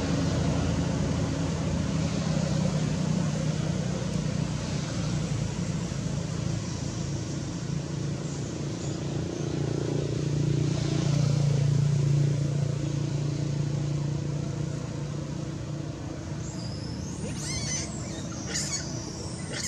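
A motor vehicle's engine running with a steady low hum, swelling about halfway through and then fading, followed near the end by a few short, high squeaking calls.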